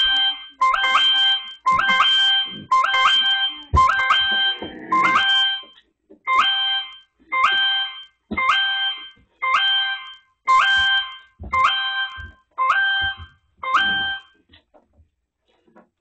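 Alexa security system alarm sounding: an electronic beep that steps up in pitch partway through, repeated about twice a second. It stops about fourteen seconds in. A few dull thumps sound underneath.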